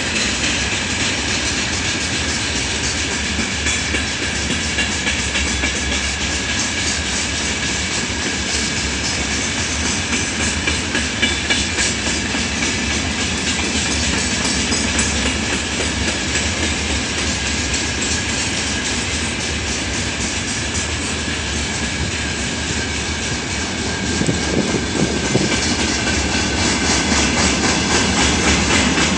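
Loaded freight wagons rolling past, their wheels clattering over the rail joints in a steady run, with a faint high ringing from wheels on rail. It grows a little louder near the end.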